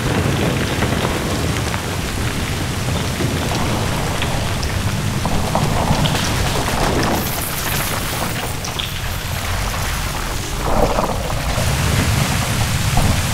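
Glacier ice front calving into the sea: a low rumble with crackling and splashing of falling ice and churning water, swelling twice.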